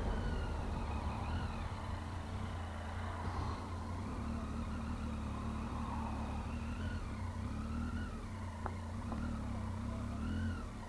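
A 2015 Triumph Tiger 800's three-cylinder engine running at low revs, easing down at the start as the bike slows off the road, then ticking along steadily at walking pace.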